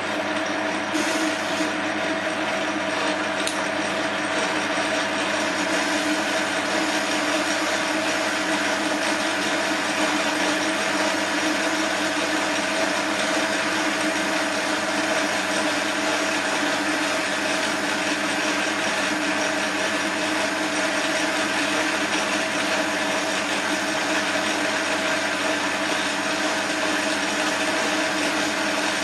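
Small bench metal lathe running at 440 RPM with a steady gear whine as a TCMT carbide insert turns a mild steel bar at medium feed.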